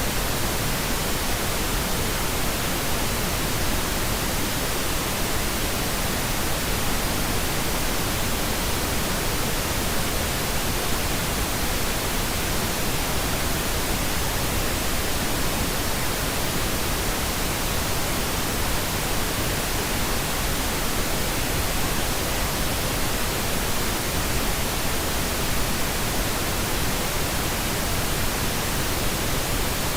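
White noise machine sound: a steady, unchanging hiss spread evenly from low to high pitches.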